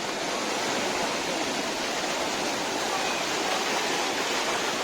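Mediterranean surf washing onto the shore: a steady, unbroken rush of water.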